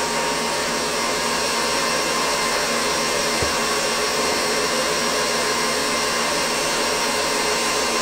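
Stand mixer running steadily at high speed, its whisk beating pumpkin marshmallow mass in a steel bowl just after the hot agar syrup has been poured in.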